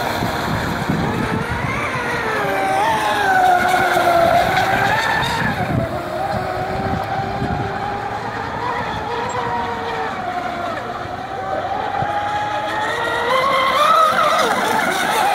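Brushless electric drive of two large 12S Fine Design Marine Snack Attack radio-controlled catamarans whining at speed, the pitch rising and falling as the boats throttle and turn on the lake.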